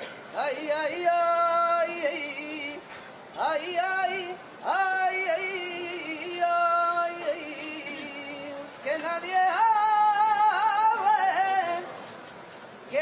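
A saeta: one voice singing unaccompanied in flamenco style to the Virgin's procession float. It sings long, ornamented, wavering phrases, with short breaths between them and a pause near the end.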